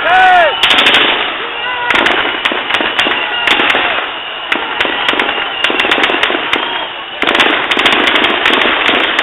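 Large crowd shouting and yelling, cut through by many irregular sharp cracks and bangs.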